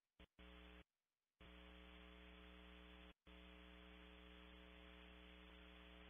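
Faint electrical mains hum on the audio feed, a steady buzzing tone with many overtones. It cuts in and out in short bursts, then runs steadily from about a second and a half in, with one brief dropout in the middle.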